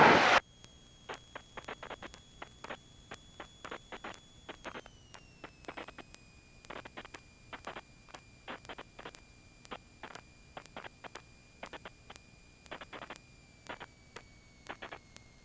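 Cockpit intercom audio feed in a Cessna 172, with little engine sound: a faint steady electrical whine that drops in pitch about five seconds in and again near the end, under irregular crackling clicks.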